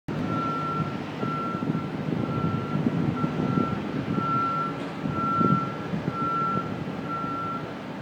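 Backup (reversing) warning alarm on construction equipment beeping a steady single tone, about one half-second beep each second, over a constant low rumble of machinery.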